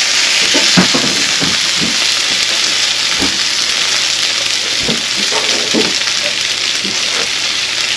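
Food sizzling steadily in a hot frying pan, with scattered light clicks and scrapes as pieces are moved around with a utensil.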